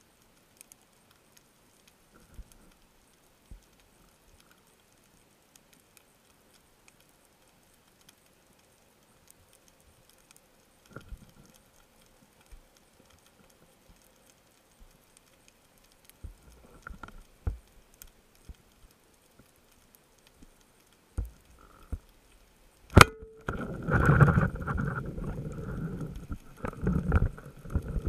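Underwater: faint scattered clicks and ticks, then late on a single sharp crack of a speargun firing, followed by several seconds of loud churning, rumbling noise.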